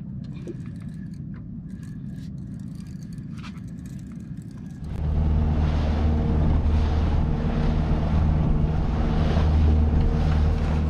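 Small motorboat's engine idling with a low rumble, then about five seconds in it runs up to a louder steady drone as the boat gets under way, with a rushing hiss of water along the hull.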